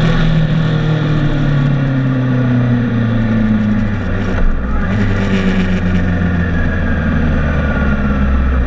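Motorcycle engine heard from on board, its note falling steadily as the bike slows, with wind rush that fades as the speed drops. About four and a half seconds in there is a brief blip, then the engine runs at low revs as it rolls slowly.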